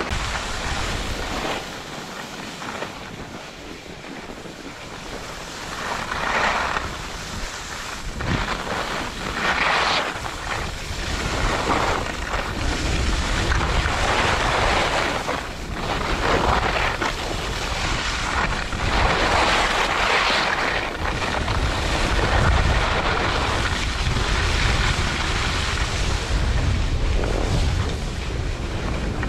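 Wind buffeting an action camera's microphone as a skier descends, with the hiss of skis scraping across packed snow swelling in repeated surges through the turns.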